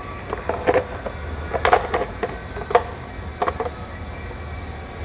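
Light metallic clinks and knocks, about eight, as precision measuring tools are handled in a toolbox drawer. A steady low hum runs underneath.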